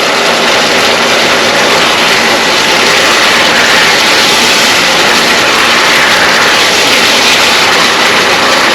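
Pork pieces sizzling loudly in a hot pan as they brown after the cooking water has boiled off: a steady, even hiss.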